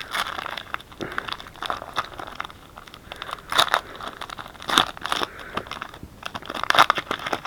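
Foil trading-card pack wrapper crinkling and tearing as it is opened by hand: irregular crinkles with a few louder crackles spread through.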